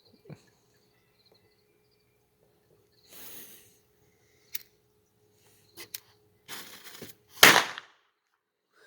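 A homemade mini firecracker fired from a tube going off with one sharp bang about seven and a half seconds in, the loudest sound here. Before it come a few small sharp clicks and a short hiss.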